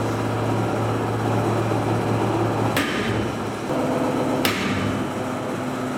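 Hydraulic tensile testing machine humming steadily as it pulls 8 mm grade 30 galvanised anchor chain, loaded to about 46 kN. Two sharp metallic cracks come from the loaded chain, about three and four and a half seconds in.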